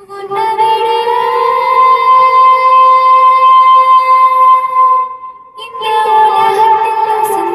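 A song with long held notes playing through an STK4141-based stereo amplifier and its speakers during a sound test. It starts abruptly, breaks off briefly about five and a half seconds in, then carries on.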